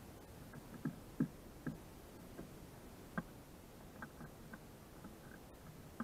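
Small birds pecking and tapping at bait on a wooden log: a few short dull knocks, the loudest about a second in and another near three seconds, with fainter ticks between them over a faint hiss.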